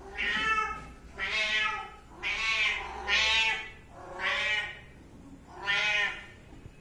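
Young cats meowing repeatedly: six meows about a second apart.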